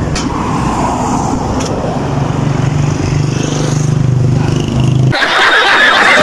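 A motor vehicle engine running close by with street noise, its low hum growing a little louder past the middle. About five seconds in it cuts off abruptly, giving way to laughter and music.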